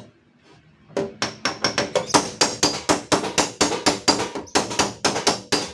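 Hammer tapping out a dent in a car door's sheet-steel panel. The fast, even blows, about five or six a second, begin about a second in, and the metal rings between strikes.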